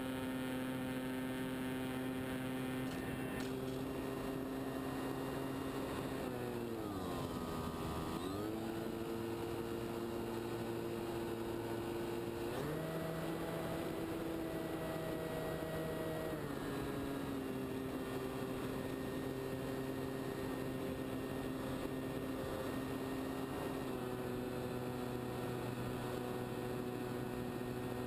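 Motor and propeller of a radio-controlled scale de Havilland Tiger Moth model, heard from on board, running with a steady hum. About a quarter of the way in the throttle comes back and the note sinks, then picks up again. A few seconds later it steps up to a higher note for about four seconds before settling back to cruise.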